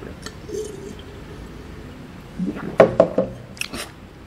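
Drinking from a glass jar with quiet swallows, then a few sharp knocks between about two and a half and three and a half seconds in as the glass jar is set down on the table.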